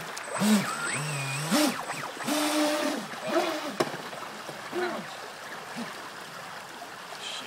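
Rushing water of a storm-swollen creek, with indistinct voices over it for the first five seconds or so.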